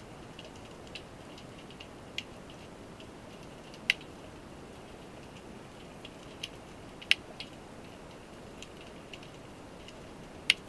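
Underwater ambience: a faint steady hiss with scattered sharp clicks and crackles, three louder clicks about four, seven and ten and a half seconds in.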